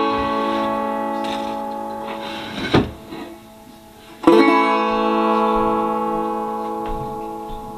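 Hubcap banjo struck clawhammer-style: a chord rings and fades, a brief knock comes near three seconds in, then a second chord is struck a little past halfway and rings out slowly.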